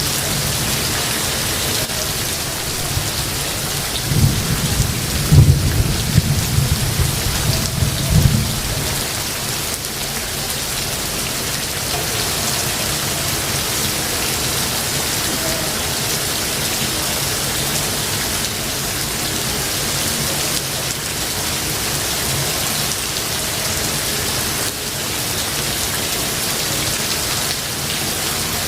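Steady heavy rain pattering on foliage, with a clap of thunder rumbling low from about four seconds in and dying away by about eight and a half seconds.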